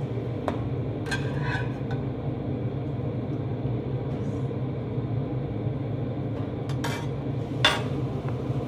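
Metal slotted spatula scraping and clinking against a nonstick frying pan as a cooked pancake is lifted out, with a sharper clatter near the end that is the loudest sound. A steady low hum runs underneath.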